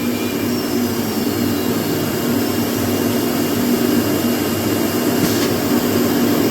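Dust-extraction vacuum on a CNC router running with a steady whooshing drone and a low hum. A faint high whine stops about five seconds in.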